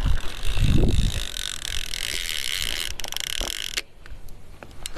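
Fishing reel's clicker buzzing steadily as a catfish runs off with the bait, cutting off abruptly about four seconds in, followed by a few light clicks.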